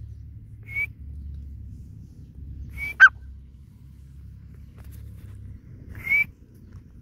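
Grey francolin giving short, high single call notes a couple of seconds apart, and about three seconds in a louder, sharp note that falls steeply in pitch. A steady low rumble lies underneath.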